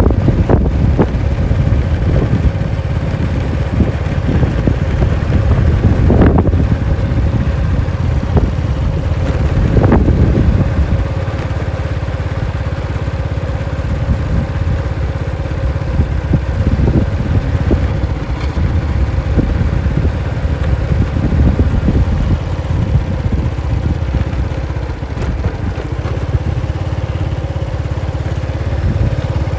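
Honda Wave underbone motorcycle's single-cylinder four-stroke engine running while cruising at low speed, a steady low rumble mixed with road and wind noise on the microphone.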